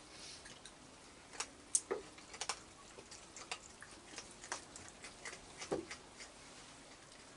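Raccoons crunching dry food: irregular sharp clicks and crunches, about a dozen, the loudest about two seconds in and again near six seconds.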